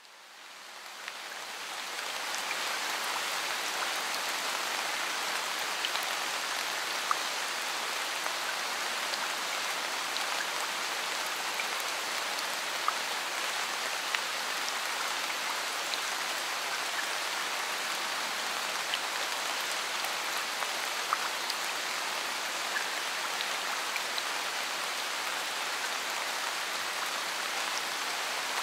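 Steady rain falling, fading in over the first two seconds, with scattered drops ticking through it.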